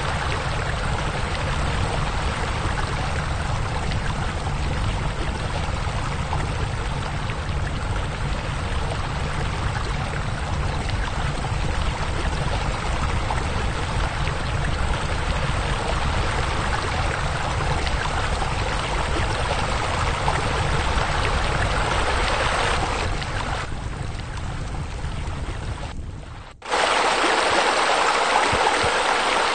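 Steady rush of splashing water over a low rumble, from pool water features such as deck jets and spillways. About 26 seconds in it dips, then cuts suddenly to a brighter, louder splashing with no rumble beneath.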